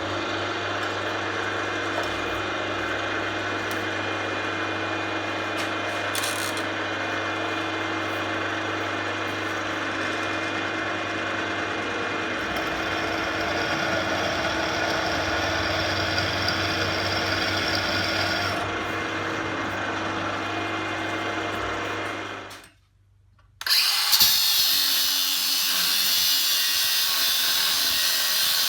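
A power tool running steadily under load, with a constant hum. About 23 seconds in it cuts to a brief silence, then a brighter, hissier power-tool sound takes over.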